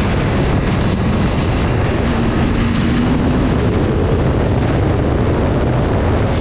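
2024 BMW S1000RR inline-four engine running through an SC Project slip-on exhaust, a loud steady exhaust note with a rapid low pulse.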